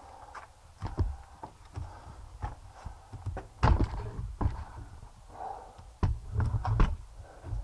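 Irregular footsteps and thumps on a stone and dirt floor, mixed with knocks from the camera being carried, with the loudest steps about three and a half seconds in and a cluster around six to seven seconds in.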